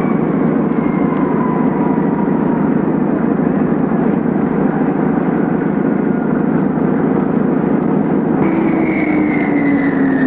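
Jet airliner engines running: a steady roar with a high whine that slowly falls in pitch, and a second falling whine coming in near the end.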